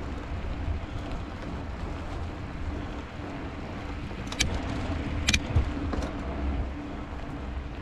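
Steady low rumble from riding a bicycle along a snowy road, with a faint steady hum, broken by two sharp clicks about four and a half and five and a half seconds in and a fainter one shortly after.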